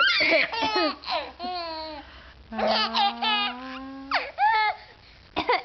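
A baby laughing in several bursts of high-pitched peals, set off by an adult's coughing.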